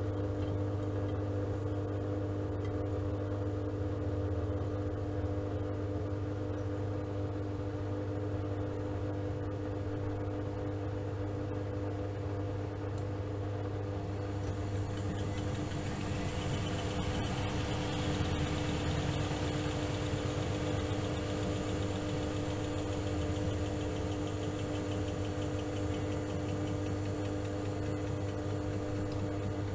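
Miele Softtronic W3923 washing machine running mid-cycle with a steady low hum, joined from about halfway through by a swelling swishing, rushing noise.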